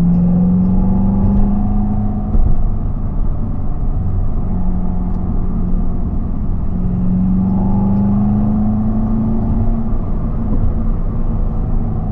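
2018 Corvette C7 Z51's 6.2-litre V8 pulling in second gear. The revs climb, drop with a brief sharp pop from the exhaust about two seconds in as the throttle closes, then climb again and ease off near the end.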